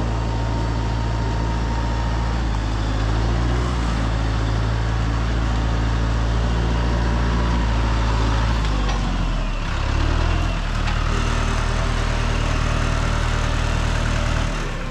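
Vehicle engine running steadily at a low, heavy note, the note dipping and shifting about ten seconds in before settling again.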